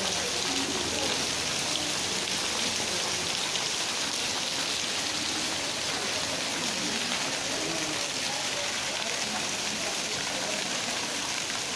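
Heavy rain pouring down in a steady downpour, an even hiss of rain hitting surfaces.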